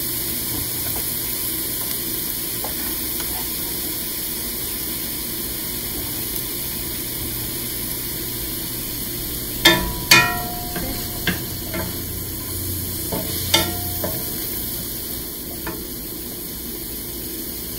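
Onions and sliced conch meat sizzling in oil in a stainless steel pan, stirred with a wooden spatula. About halfway through come a handful of sharp knocks of the spatula against the pan, the first two loudest and close together.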